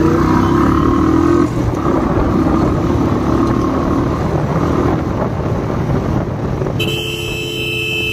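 Royal Enfield Bullet motorcycle's single-cylinder engine running as it rides off in traffic, with road and wind noise. A horn sounds for about a second near the end.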